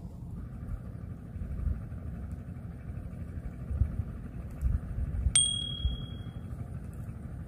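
A single clear bell-like ding about five seconds in, ringing on for about a second, over a steady background hiss and low rumble.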